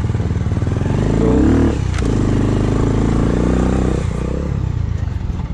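Motorcycle engine running on a rough dirt track, the revs climbing about a second in. A sharp click comes about two seconds in, and the engine runs steadily until the revs dip near four seconds.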